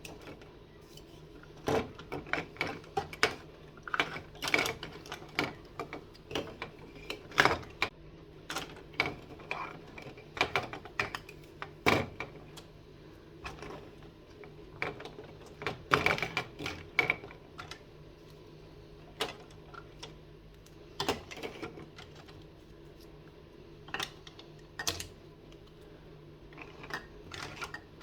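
Toys being handled, tapped and set down: irregular clicks and knocks in clusters, with short quieter gaps, over a faint steady hum.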